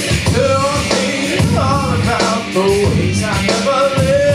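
A man singing into a microphone over loud rock-style backing music with a steady beat, his sung lines bending and holding notes.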